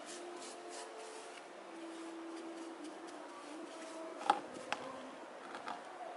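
Soft rubbing and scraping of a hand-held pad over the surface of a cement baluster, with two sharp clicks a little past the middle, the first the loudest.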